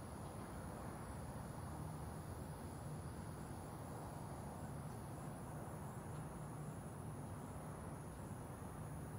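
Insects, such as crickets, trilling steadily in a high pitch, with a faint pulsing chirp beneath it, over a low steady rumble.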